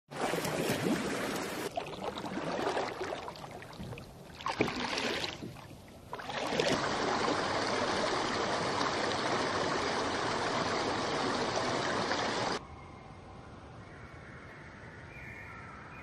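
Rushing, stream-like water noise: uneven and surging for the first six seconds, then a steady even rush that cuts off suddenly about twelve and a half seconds in, leaving a much quieter background with a few faint thin tones.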